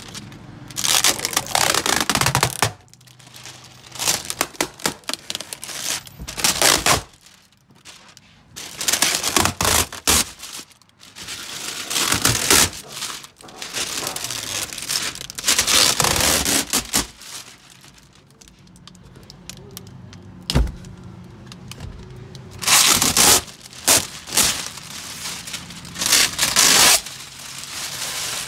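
Clear plastic film being peeled off a car dashboard and crumpled, crinkling and crackling in repeated bursts with short pauses between.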